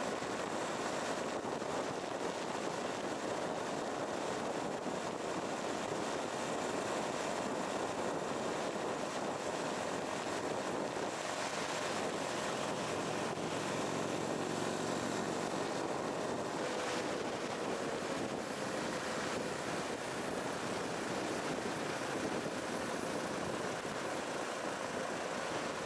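Steady wind rush on the microphone of a motorcycle moving at road speed, with the Yamaha Serow 250's air-cooled single-cylinder engine running underneath.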